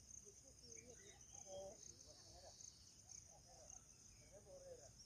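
Faint, steady trilling of insects in a high, finely pulsing band.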